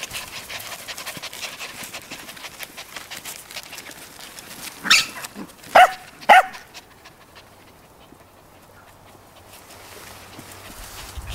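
Cairn terrier puppies scuffling and rustling through dry grass, then three sharp high-pitched yaps in quick succession about halfway through, the loudest sounds.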